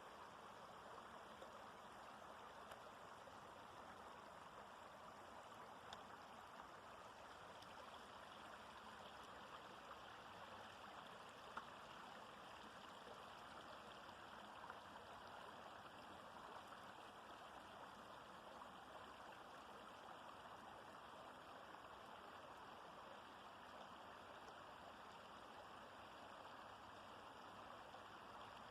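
Forest stream flowing steadily: a soft, even rush of running water.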